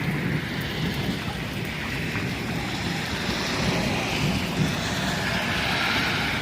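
Steady rain and wind noise with a low rumble underneath, the hiss growing a little stronger in the second half.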